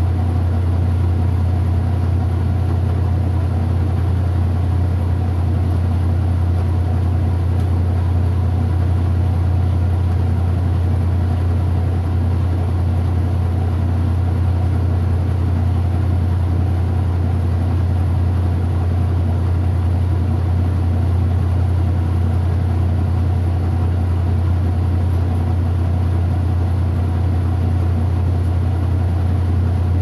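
Kenmore 80 Series direct-drive top-loading washing machine in its final spin after the rinse, the tub spinning at speed with a steady low motor hum.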